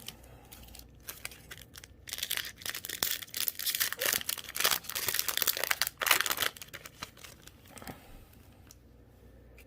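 A foil trading-card booster pack being torn open and its wrapper crinkled, a dense crackling that starts about two seconds in and stops after about four and a half seconds.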